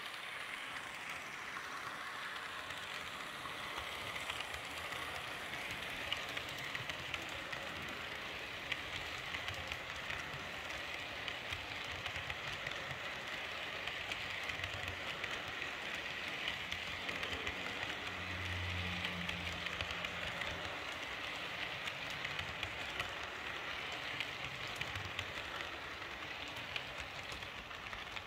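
H0-scale model train running past on model track: a steady rolling rattle of the locomotive and coaches' wheels, with a quick run of small clicks as they cross rail joints and points.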